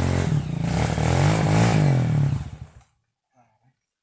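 Trail motorcycle engine revving hard, its pitch rising and falling with the throttle, then fading out about two and a half seconds in.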